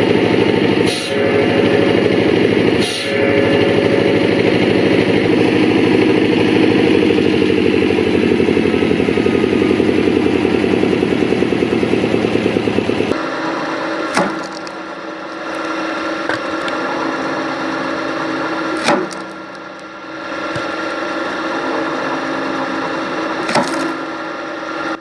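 Wood-processing machinery at work: a loud machine runs steadily with a fast, even rhythm. About thirteen seconds in it gives way to a quieter machine sound broken by three sharp cracks of wood.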